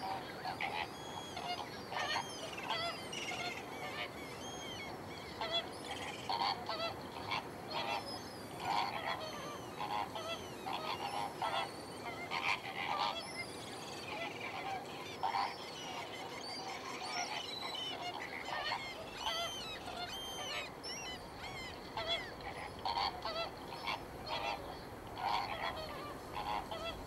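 A flock of Andean flamingos calling, many short calls overlapping in a steady chatter.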